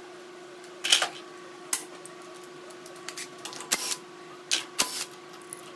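Hand tools clicking and clinking against the valve train of a Briggs & Stratton V-twin's cylinder head as the rocker arms are worked loose, about a dozen short metallic ticks at uneven intervals, the sharpest about a second in. A steady hum runs underneath.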